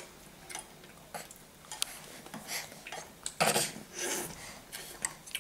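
A spoon clinking and scraping lightly against a dish in small scattered taps while a baby is spoon-fed, with a couple of louder short breathy noises from the baby a little after three seconds in.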